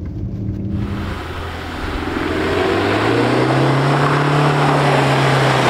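2005 Mitsubishi L200 pickup's turbodiesel engine, heard briefly from inside the cab and then from outside as the truck drives up. The engine note rises for a few seconds and drops away near the end, over a broad rushing noise.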